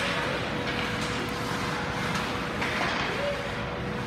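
Ice hockey rink game sound: skates on the ice and brief sharp stick clacks under faint voices, over a steady hum.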